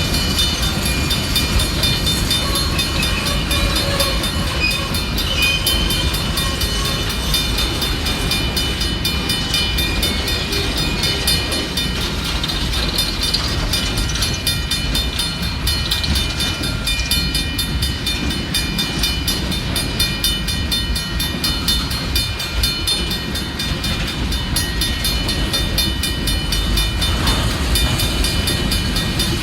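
Union Pacific coal train's cars rolling past on the rails, a steady loud rumble of wheels on track with a faint clickety-clack.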